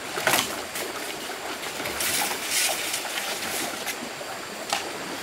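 Water splashing in three short bursts, over a steady hiss of running water.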